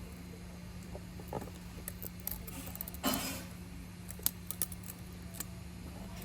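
Light clicks and taps of small tools and parts being handled during an iPhone 11 repair, with a short scrape about three seconds in and a few sharp ticks after it, over a steady low electrical hum.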